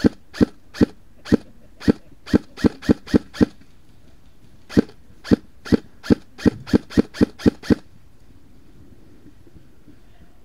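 Airsoft rifle firing single shots in quick succession: a string of about ten sharp cracks, a short pause, then another string of about ten that stops about eight seconds in.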